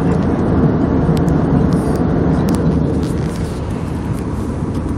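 Jet airliner's steady rumble, with a few faint clicks, easing a little about three seconds in.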